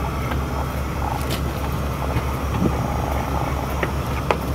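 An engine idling steadily nearby, a low even throb, with a few light sharp clicks over it.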